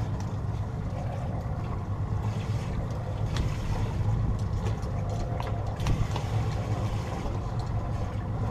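Fishing boat's engine idling steadily, with a few sharp clicks and knocks.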